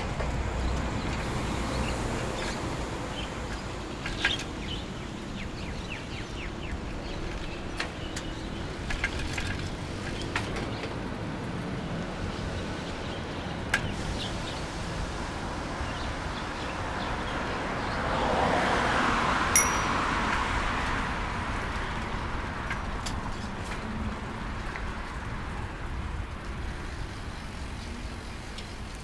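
Roadside traffic noise, swelling as a vehicle passes about two-thirds of the way through. A single short bell ding sounds at the loudest point of the pass.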